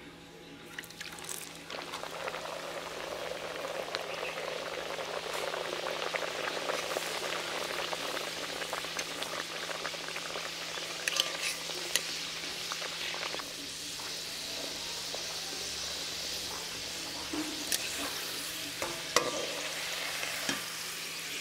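Stuffed chicken keema kachuri deep-frying in hot refined vegetable oil in a metal kadai: the sizzling starts about two seconds in and runs steadily. A flat metal spatula clicks and scrapes against the pan several times as the kachuri is pressed and turned.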